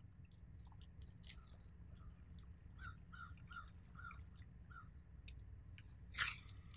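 Faint lakeside ambience of birds calling, over a low steady rumble. In the middle comes a run of five short, evenly spaced calls, and one brief louder sound comes near the end.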